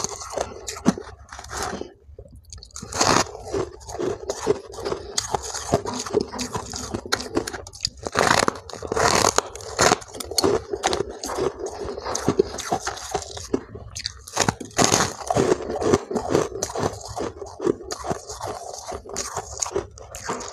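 Close-miked crunching of powdery white frost-ice as it is bitten off a packed clump and chewed, in quick crackling bursts that come in louder clusters every few seconds.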